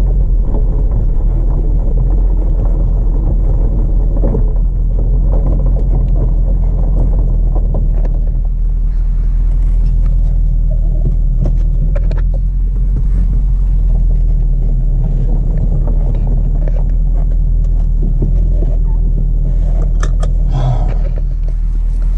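Mercedes C63 AMG engine and exhaust, with the secondary cats and resonators deleted, running at low, steady revs with a deep, even rumble. A few short clicks sound near the end.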